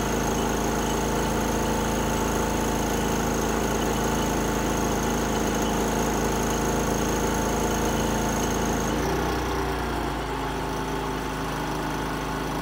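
Predator 3500 inverter generator running steadily under an almost 2,000-watt load from a microwave oven. About nine seconds in the load comes off: a high thin whine stops and the engine eases down to a slightly quieter, lower running note.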